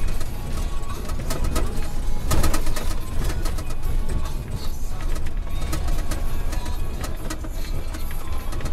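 Rattling and knocking of a vehicle riding over a rough cobblestone road, over a steady low wind rumble on the microphone.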